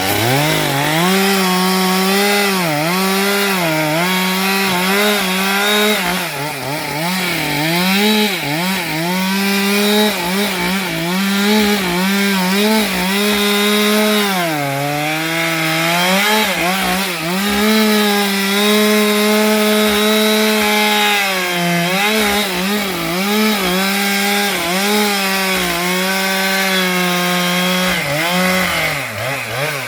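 Stihl MS462 two-stroke chainsaw cutting through wood under full throttle, its engine speed sagging and recovering again and again as the chain bites. The pitch dips lower about halfway through and falls away near the end.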